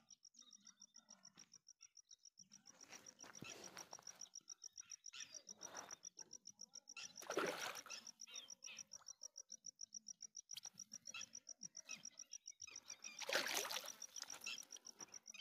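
A high, rapidly pulsing chirp repeats evenly at one pitch over faint outdoor background noise. Two louder bursts of noise, the loudest moments, come about seven and thirteen seconds in.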